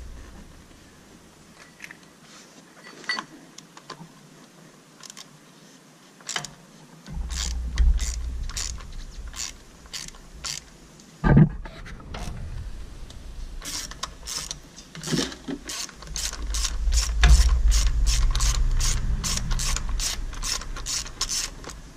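Socket ratchet clicking as it turns an end cap filter wrench on a wobble extension to loosen a tractor's spin-on oil filter, a fast run of clicks, about four a second, in the second half. One heavy knock comes about halfway through.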